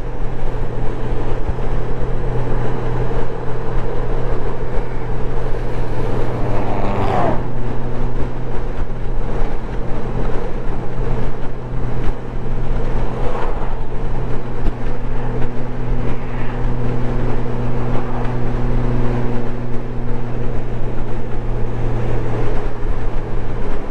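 Honda Gold Wing touring motorcycle running at steady road speed, heard from the rider's seat: a continuous engine drone under rushing wind. The engine note briefly sweeps about seven seconds in and drops slightly near the end.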